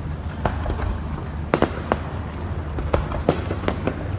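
Fireworks bursting: an irregular string of sharp pops and cracks, several close together about a second and a half in and again near the end, over a steady low rumble.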